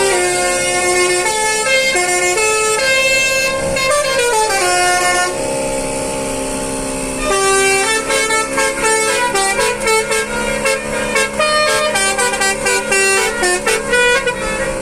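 Basuri telolet horn, a multi-trumpet musical car horn, playing a tune: stepped notes with a sliding sweep about four seconds in, a held chord, then a run of quick short blasts from about seven seconds on.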